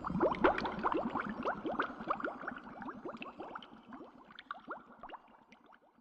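Bubbling water sound: many quick rising blips, dense at first, then thinning and fading out over several seconds.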